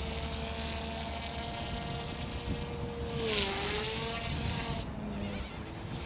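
OMPHOBBY M2 mini electric 3D RC helicopter in flight, its brushless direct-drive motor and rotor head giving a steady buzzing whine. A little past halfway the pitch dips briefly with a whoosh, then climbs back up.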